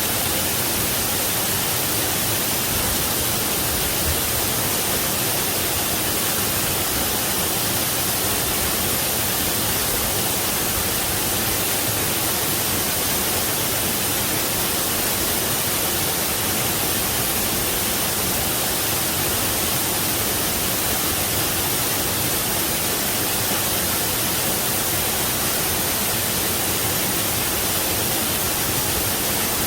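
Waterfall: a steady, unbroken rush of falling water, even and hiss-like with most of its energy high up.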